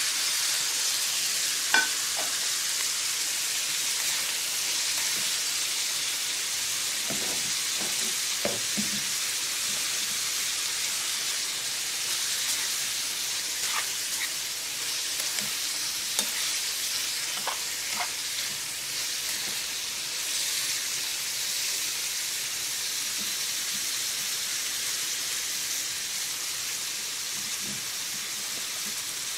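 Liver and chopped peppers sizzling steadily as they fry in hot oil in a pan, with a few sharp clicks, the loudest about two seconds in.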